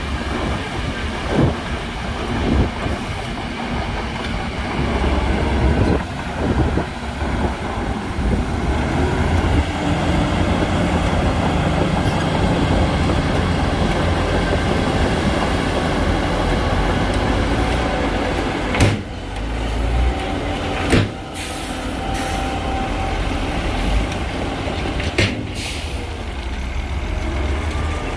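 Heavy diesel earthmoving machinery running: a steady, loud engine rumble, with three short, sharp sounds in the last third.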